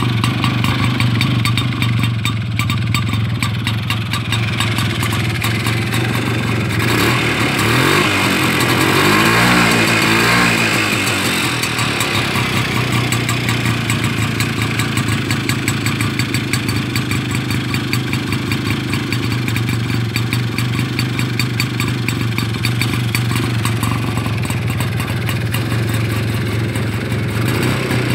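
1957 Peugeot Movesa 125's single-cylinder engine idling with an even beat. About seven seconds in the revs rise and fall back to idle over a few seconds.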